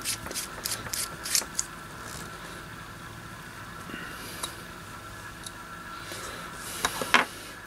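Metal housing of an HP 410A voltmeter's AC probe being unscrewed by hand: a quick run of small clicks and scrapes from the threads, about six a second for the first second and a half. Then a low steady hum, with a couple of clicks near the end.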